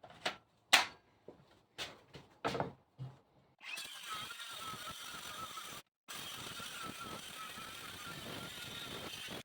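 Several sharp knocks and clicks of wood being handled, then a power tool running steadily for several seconds, cut off briefly about six seconds in and starting again.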